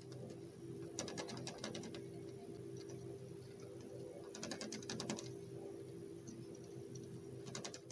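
Great peacock moth beating its wings against a glass door: three bursts of rapid light tapping, each about a second long, over a steady low hum.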